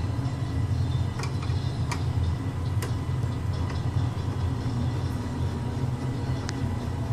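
Steady low machine hum with a faint high whine, and a few short sharp clicks and taps scattered through it.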